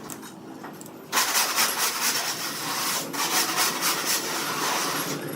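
Power woodworking machine cutting into wood, a loud rasping noise with no clear pitch. It starts strongly about a second in, eases off briefly, then cuts again.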